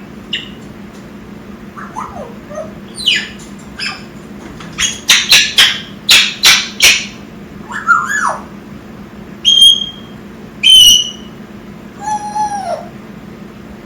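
Young African grey parrot calling: a string of varied whistles, squeaks and sharp loud squawks, with a run of about six harsh calls in quick succession near the middle and a few short high whistles after it.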